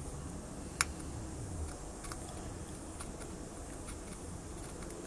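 Quiet room tone with a faint low hum, a single sharp click just under a second in, and a few faint ticks.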